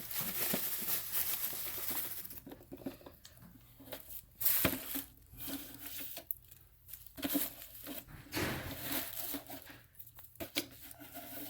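Rustling and crinkling as full vacuum dust bags are handled, with a few sharp knocks, about halfway through and near the end.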